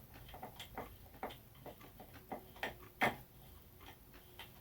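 Irregular light clicks and ticks, a few a second, with one louder click about three seconds in, as the second ceiling fan canopy nut is unscrewed by hand.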